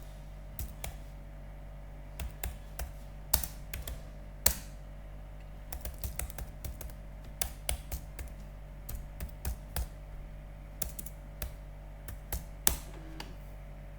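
Computer keyboard keys tapped in irregular clusters of clicks, over a steady low electrical hum.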